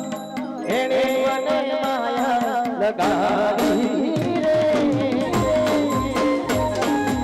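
Live Gujarati devotional folk song: a singer's wavering melody over keyboard, with a regular dhol drum beat coming in about four seconds in.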